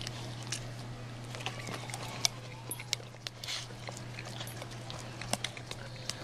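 Boxer dog licking its nose and smacking its lips and tongue: a run of quick, irregular wet clicks and smacks over a steady low hum.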